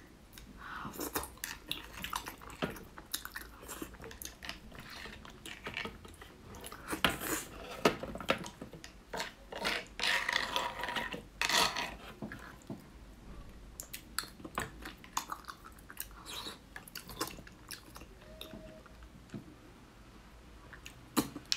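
Close-up eating sounds of soft roasted beef bone marrow: wet chewing and lip smacks, irregular, with busier stretches around the middle.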